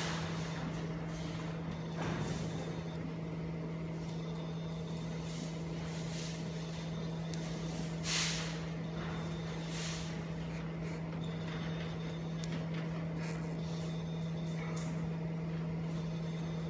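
Mini fiber laser marking machine running: a steady low hum over an even fan-like noise, with two brief hisses, the louder about halfway through.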